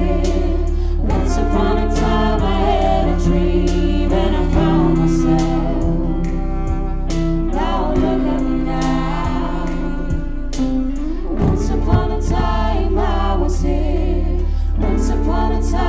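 Music: a track with a steady deep bass, a regular light beat and a melodic line that bends in pitch.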